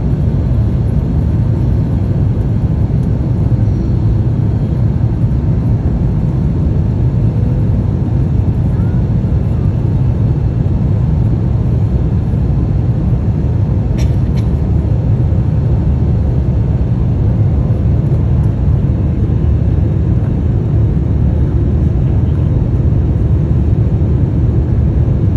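Airliner cabin noise in flight: the steady low drone of the engines and airflow heard from inside the passenger cabin, with one brief click about halfway through.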